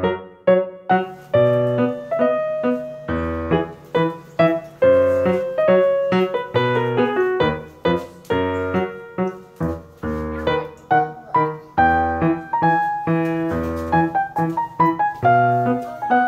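Upbeat solo piano background music: quick struck notes over a low bass note that falls on a steady beat.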